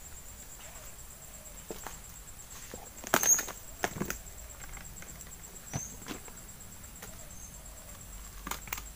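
A steady, high, fast-pulsing insect chirr, with scattered clicks and knocks; the loudest is a cluster about three seconds in.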